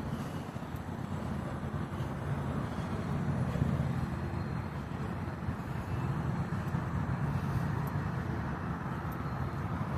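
Steady low rumble of a heavy engine running, with faint road traffic noise.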